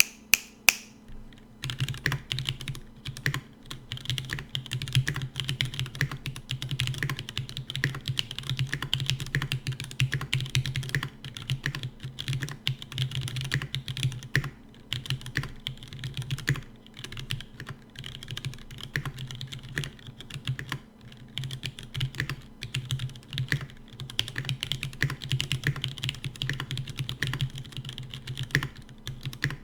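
TX75 75% mechanical keyboard with vintage Cherry MX Black linear switches and GMK keycaps being typed on: a couple of single key clicks, then steady continuous typing from about two seconds in.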